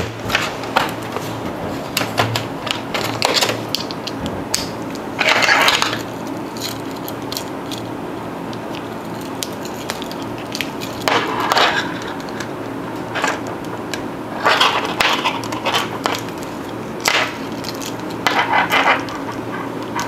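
Metal key ring and keys clinking and rattling in the hands as a keychain is worked off a car remote key, in scattered clicks and short rattles over a steady low hum.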